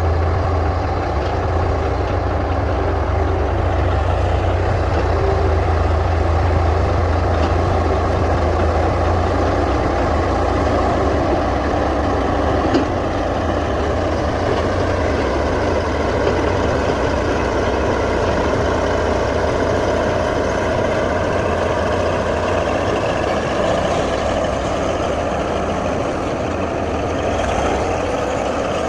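Komatsu D155A bulldozer's diesel engine running steadily while the dozer works, a heavy low drone. From about halfway a higher whine wavers up and down in pitch over it.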